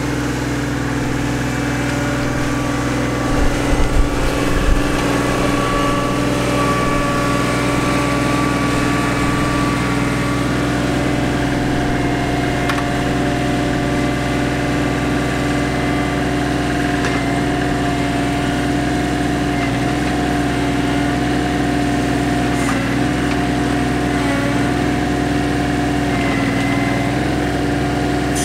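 John Deere 2025R compact tractor's three-cylinder diesel engine running steadily while working the backhoe, its pitch dipping slightly now and then. A few low thumps about four seconds in.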